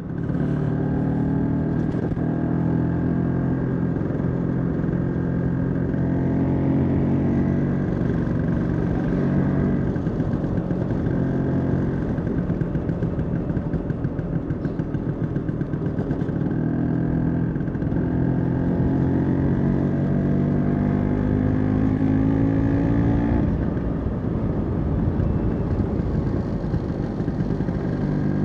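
Vespa scooter's single-cylinder engine running while riding, its note rising and falling with the throttle. It turns rougher and choppier in the middle, then climbs steadily in pitch for several seconds before easing off near the end.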